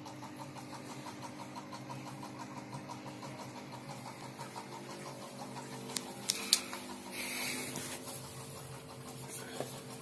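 Steady machine hum with a fast, light pulsing in the first few seconds. Around the middle come a few sharp clicks and a short rustle of handling, then one more click near the end.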